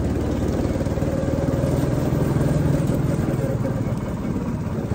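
Two-seater go-kart's small petrol engine running steadily as the kart drives around the track.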